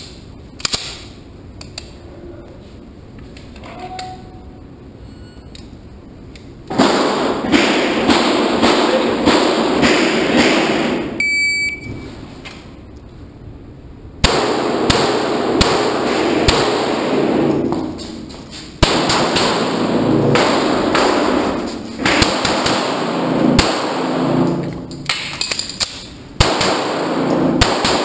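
9mm CZ SP-01 pistol fired in rapid strings inside a concrete indoor range, each shot ringing with heavy echo, the strings broken by short pauses. A short electronic beep sounds about eleven seconds in.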